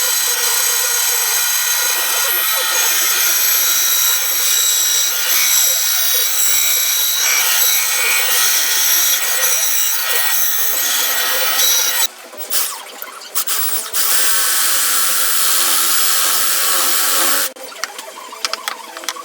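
A power tool working wood runs loudly with a high whine. It stops about twelve seconds in, starts again about two seconds later, and cuts off shortly before the end.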